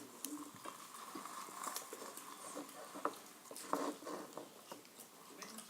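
Faint, scattered small clicks and soft taps of hands handling a cut-open foam squishy toy and its sticky filling.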